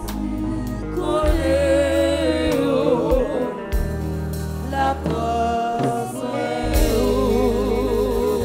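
Gospel singing in Haitian worship style, a voice with wide vibrato holding long notes over sustained bass notes from a keyboard or bass accompaniment.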